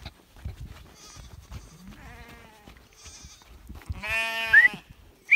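Sheep and goats bleating: several faint, quavering bleats, then one loud, long bleat about four seconds in that rises in pitch at its end, and a short sharp call just after.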